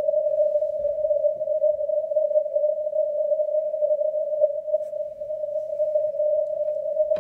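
Amateur radio receiver audio on the 160-metre band through a narrow 600 Hz CW filter: a steady hissy tone near 600 Hz with a weak Morse signal from the A5A (Bhutan) station in the noise.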